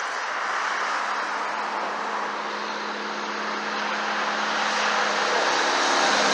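Road traffic going by: a steady rush of tyre and engine noise with a low hum, slowly getting louder toward the end as a vehicle approaches.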